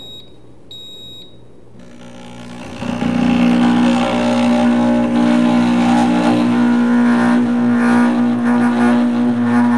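Pampered Chef Deluxe Cooking Blender: a short beep from its control panel about a second in, then its motor starting near two seconds in and speeding up to a loud, steady hum on the grind setting. It is working an overfull, thick load of flour, sugar, cinnamon and butter pushed down with the tamper.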